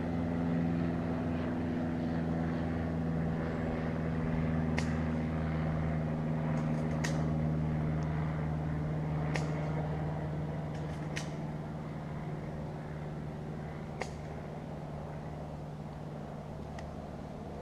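A steady engine hum, running evenly and slowly fading over the second half, with a few scattered sharp clicks.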